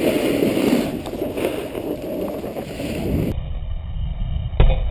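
Wind buffeting an action-camera microphone, with snowboard scraping over packed snow while riding. After a cut about three seconds in, a lower wind rumble continues and one sharp knock sounds near the end.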